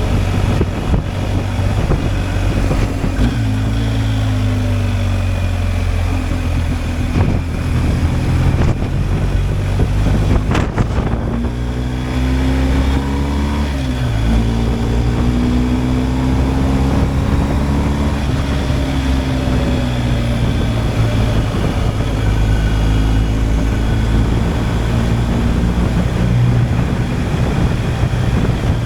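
BMW R 1250 GSA's boxer-twin engine running under way, its note rising and falling several times with throttle and gear changes, with wind noise over the microphone.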